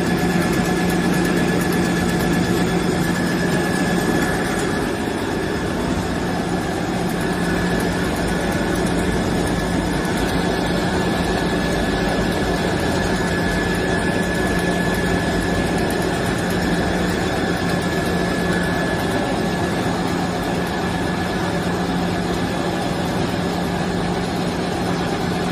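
Paper straw bending machine running continuously: a steady mechanical hum with a low drone and a thin high whine held throughout.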